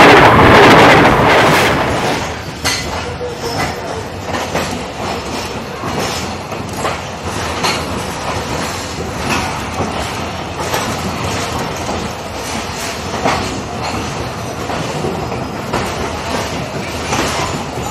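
A diesel locomotive passes directly over the microphone with a loud rumble for about two seconds. The sound then drops to the steady clickety-clack of coach wheels over rail joints, heard from an open coach doorway as the train departs the station.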